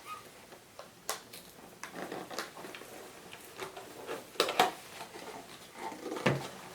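Packaging of a mystery wand box being handled and opened: scattered light clicks, taps and rustles, with a louder knock about four and a half seconds in and another near the end.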